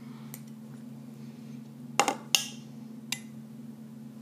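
A metal table knife knocking and clinking against a cup while stirring juice: two sharp clinks about two seconds in and a couple of lighter taps, over a steady low hum.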